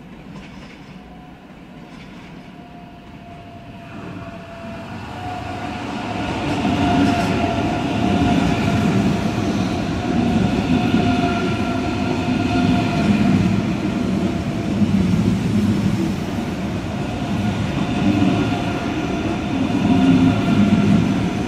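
ICE high-speed train approaching and then passing close along the station platform. A rumble of wheels on track builds over the first several seconds, then holds steady, with a whine of several held high tones over it.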